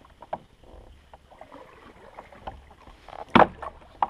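Knocks and clatter from handling on a plastic fishing kayak, as the angler handles a freshly caught fish and gear on board. Scattered light clicks, with one loud sharp knock a little over three seconds in and another near the end.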